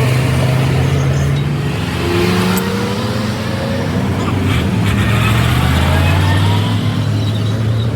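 A motor engine running steadily with a loud, low hum.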